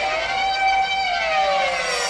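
Ringing tail of a synthesized 'boom' ending sound effect: a steady, layered chord of tones with pitch lines that sweep down and back up about once a second.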